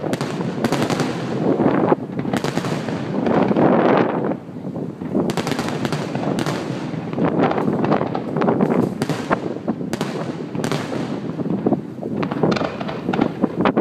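Aerial fireworks shells bursting: an uneven run of sharp bangs, about one or two a second, each trailing off.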